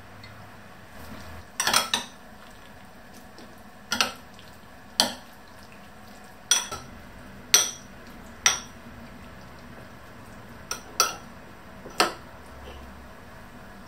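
Metal spoon stirring a sauce in a small ceramic bowl, clinking sharply against the sides at irregular intervals, roughly once a second, with a few quick double clinks.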